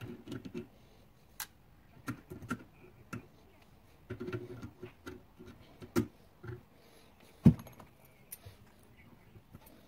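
Irregular metal clinks, taps and rattles of valve parts and tools being handled as valves are fitted into a Zongshen 250cc cylinder head, with one sharper knock about three-quarters of the way through.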